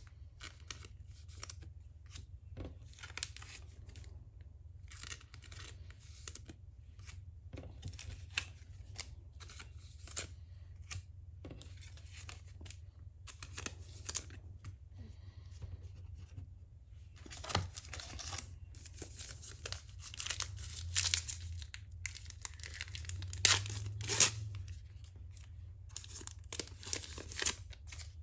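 Trading cards and plastic card sleeves being handled: many short, irregular rustles, crinkles and tearing-like scrapes, louder in the second half.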